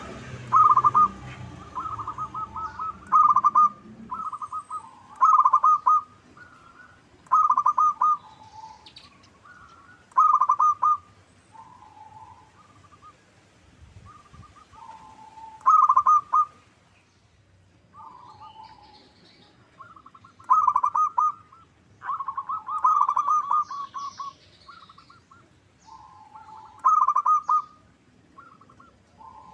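Local zebra dove (perkutut) singing its fast pulsed cooing phrases, one every two to three seconds, with faint high chirps from small birds between them.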